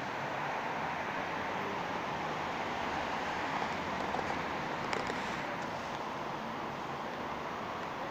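Steady city street noise: an even hiss of traffic, with a few faint clicks about five seconds in.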